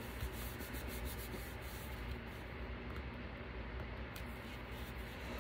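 Soft rubbing and rustling of hands smoothing a glued paper piece flat onto a cardstock repair tag, with a few faint light taps.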